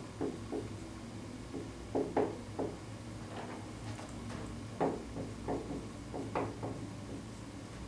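Dry-erase marker writing on a whiteboard: short, scattered squeaks and taps of the pen strokes, over a steady low hum.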